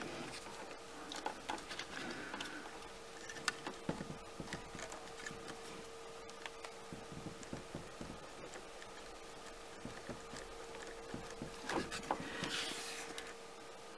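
Faint, scattered small clicks and ticks of wires and clip connectors being handled and fitted onto the terminals at the back of a boat's electrical switch panel, with a brief rustle a little after twelve seconds.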